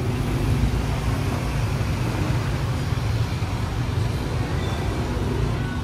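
Steady street traffic noise from cars and motor scooters passing close by, with a faint engine hum near the start and again near the end.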